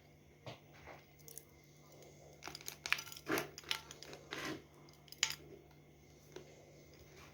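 Biting and chewing a piece of slightly moistened Charodeyka pressed chalk, with a cluster of crisp crunches in the middle as it flakes and crumbles in the mouth.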